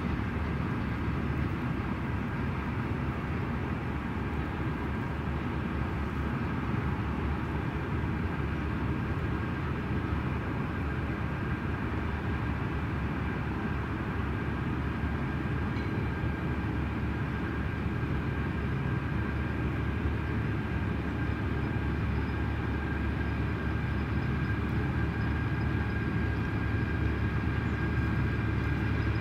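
Diesel-hauled train running steadily: a low engine hum with a faint high whine, holding at one level throughout.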